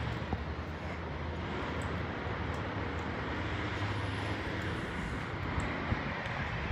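Steady outdoor background noise: an even hiss over a low, constant engine-like hum.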